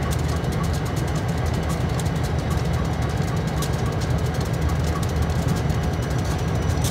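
EMD SD40-2 diesel locomotives running steadily in yard switching, a continuous low rumble. A faint regular tick comes about twice a second.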